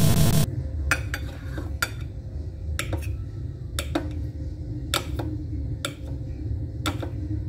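Kitchen knife dicing a block of cheese on a plate, the blade knocking on the plate at each cut: sharp, uneven taps about once a second. Background music cuts off about half a second in.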